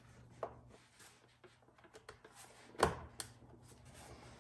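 PCV hose connectors being clicked back onto the engine's fittings by hand: three short plastic clicks, the loudest a little under three seconds in.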